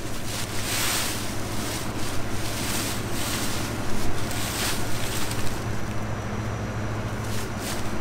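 Footsteps crunching through dry, chopped corn stalks and leaves in irregular rustles, over the steady low running of a combine harvester's engine.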